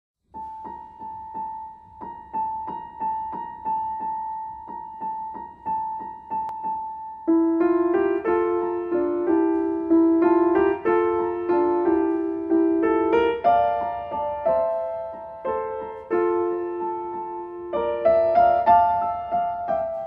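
Background piano music. A single high note is struck over and over, about twice a second, and about seven seconds in chords and a melody join it.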